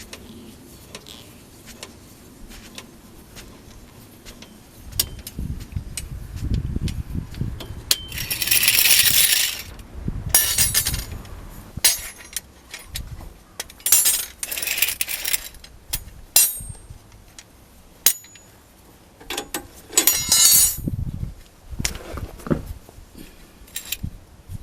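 Metal clinks and knocks of tools and wheel nuts being handled during a car tyre change, with three louder spells of rushing, scraping noise.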